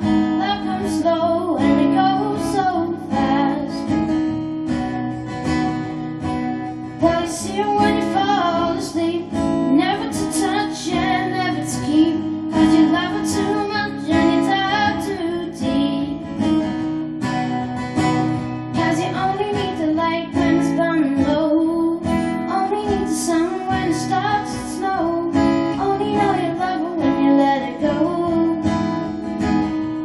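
Acoustic guitar strummed steadily, with a young boy singing along.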